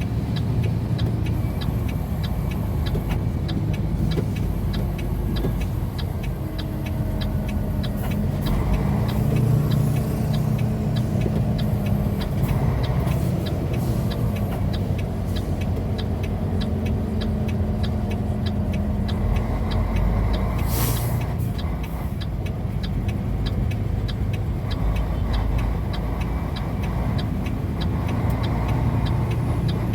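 Heavy truck's diesel engine running steadily under way with road noise, heard from inside the cab, with a faint regular ticking throughout. A short hiss, typical of an air brake, comes about two-thirds of the way through.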